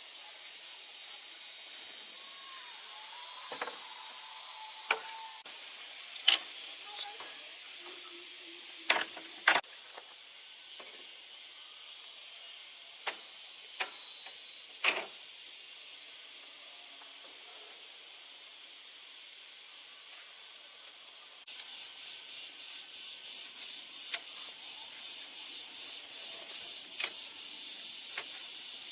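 A steady high-pitched hiss with scattered sharp knocks in the first half. About three-quarters of the way through, a louder pulsing hiss starts, beating roughly three times a second.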